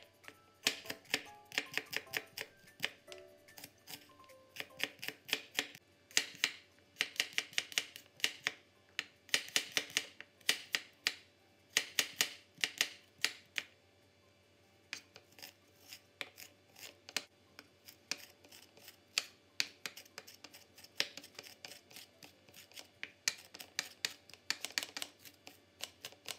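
Kitchen knife chopping on a cutting board, finely mincing shallots and garlic: quick runs of sharp taps with short pauses between them, and a longer pause about halfway through.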